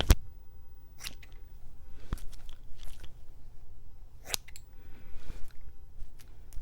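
Scissors snipping through strands of crochet braid hair: several separate cuts about a second apart, the sharpest right at the start.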